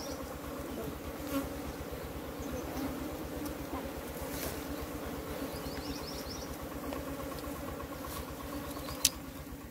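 A swarm of honey bees buzzing in a steady, many-voiced hum around their nest as it is dug open in the ground; the bees are stirred up. A single sharp click comes near the end.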